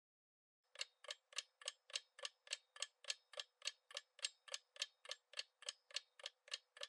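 Clock-ticking sound effect of a quiz countdown timer: sharp, even ticks at about three to four a second, starting just under a second in.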